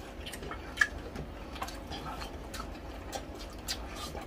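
Close-miked eating sounds of people chewing crispy pata (deep-fried pork knuckle) and rice: irregular small mouth clicks and lip smacks, a few a second.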